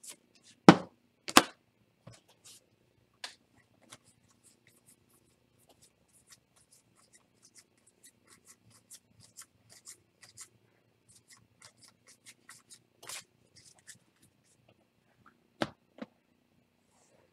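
Trading cards and their packaging being handled on a table: scattered light clicks and ticks, with two sharp snaps about a second in and another near the end.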